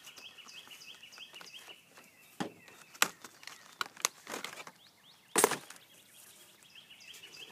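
Clear plastic blister pack being cut and pried apart by hand, crackling and snapping in a handful of sharp clicks, the loudest about five and a half seconds in. A faint rapid series of high chirps runs behind it at the start and again near the end.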